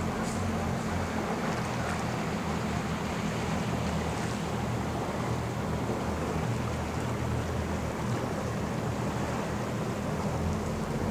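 Steady wind rumbling on the microphone over the wash of choppy water.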